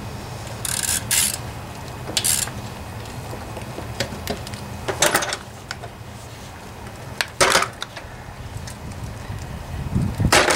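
Hands and tools working on the metal frame of a pressure washer: about five short clinking, scraping bursts a second or two apart, over a low steady hum.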